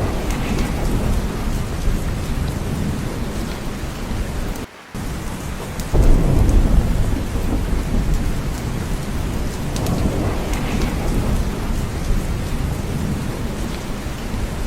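Steady heavy rain with rolling thunder rumbling underneath; a louder thunder rumble breaks in suddenly about six seconds in. The sound briefly drops out just before that.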